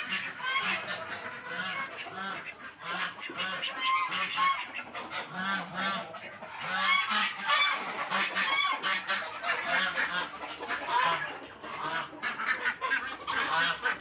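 A mixed flock of domestic poultry calling, with geese honking most prominently: many short calls overlap throughout.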